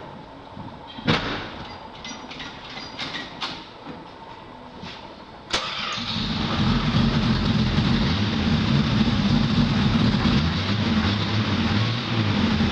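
Chrysler 225 slant-six carbureted engine in a 1981 Dodge D150 starting up, fresh from a new intake/exhaust manifold gasket: a few light clicks and knocks, then about five and a half seconds in it fires suddenly and settles into steady running.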